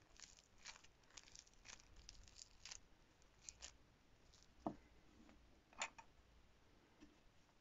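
Foam-bead flossy clay squeezed and pulled apart by hand, giving faint quick crackles and crunches, with two sharper clicks about halfway through.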